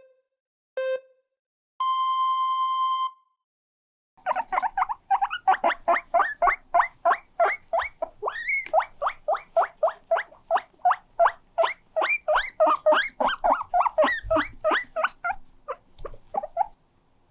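Guinea pig wheeking: a fast run of short, high squeaks, about three a second, lasting some twelve seconds, with one longer rising squeak near the middle. Before it, a short electronic beep and a held electronic beep tone, then a pause of about a second.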